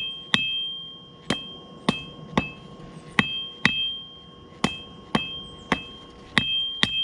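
Hand-forging hammer blows on a thin 5160 spring-steel blade over an anvil, hammering in the cutting-edge bevel. About eleven irregular strikes, roughly two a second, each followed by a clear anvil ring that carries on between blows.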